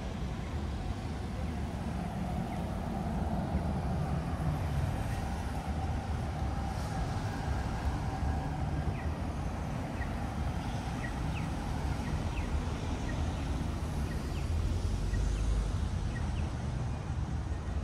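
City street traffic: a steady low rumble of passing vehicles, swelling slightly about four seconds in and again near the end.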